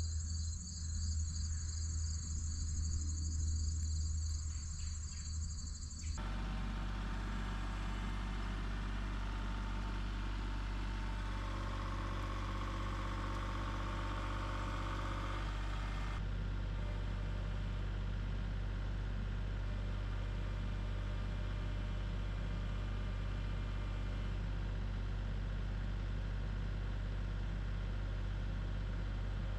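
Crickets chirping over a low engine hum. About six seconds in the chirping cuts off, leaving a compact tractor's engine running steadily at idle.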